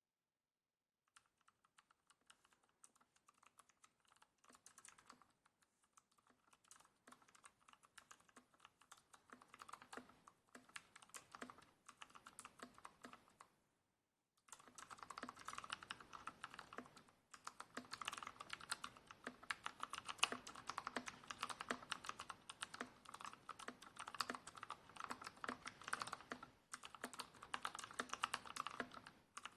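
Typing on a computer keyboard: a fast, steady stream of keystroke clicks. It stops briefly about halfway, then resumes louder and denser.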